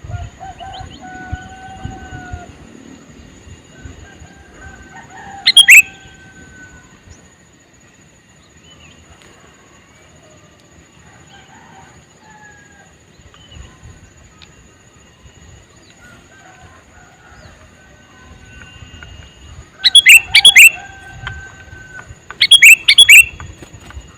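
Male sooty-headed bulbul calling: three loud, sharp bursts of chattering notes, one about five seconds in and two close together near the end, with fainter whistled notes between them.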